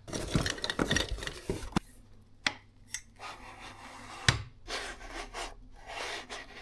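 Hands handling a large projector lens and its cardboard packaging: a busy patch of rustling and clatter, then a few sharp clicks and several short scraping rubs as palms slide over the lens barrel.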